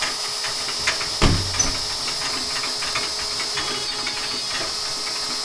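A machine running steadily: a constant hiss with a high whine, scattered small clicks, and a thump about a second in.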